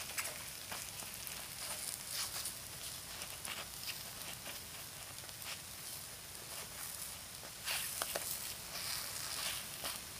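Takoyaki batter sizzling steadily in the hot wells of a takoyaki plate, with scattered light clicks and scrapes of wooden skewers turning the balls, busier about eight seconds in.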